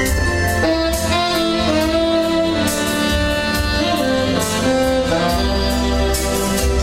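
Background music: an instrumental piece with a saxophone-like lead melody over a steady bass and beat.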